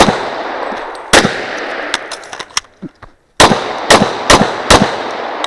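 Pistol shots from a .40 S&W Glock 35, each followed by a ringing echo: one right at the start, another about a second later, then four fast shots near the end.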